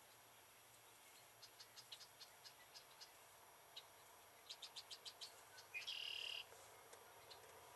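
Faint evening marsh wildlife calling: scattered high chirps and clicks, a quick run of clicks a little past halfway, then one short buzzy call about six seconds in.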